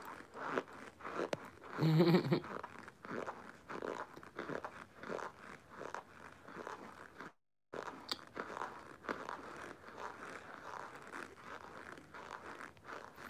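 A person chewing baked cornstarch in the mouth: a steady run of crisp, chalky crunches. There is a brief hum of the voice about two seconds in, and the audio cuts out for a moment past the middle.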